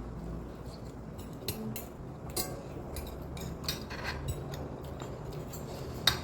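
Eating sounds: a utensil clinking and scraping against a bowl in short, irregular taps, the sharpest clink about six seconds in.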